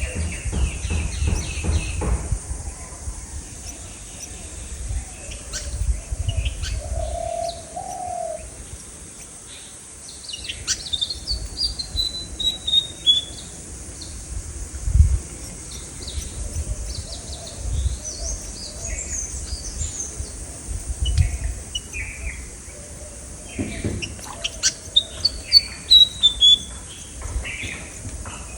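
Wild birds chirping and calling, with scattered short high chirps and twice a quick run of falling notes, over a low rumbling background.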